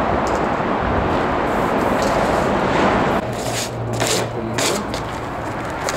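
Spray paint can hissing in several short bursts over a steady rushing background noise.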